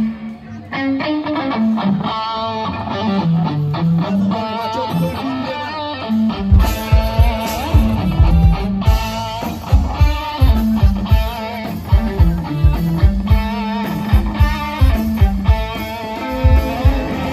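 Live band music with an electric guitar melody over a bass line; a drum beat comes in about six seconds in.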